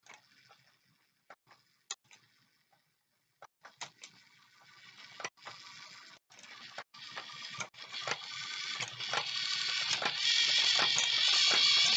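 Small electric motor and plastic LEGO gears whirring and rattling as the mechanism carries a ball up the ramp. A few scattered plastic clicks come first; the whirring builds from about four seconds in and is loudest near the end.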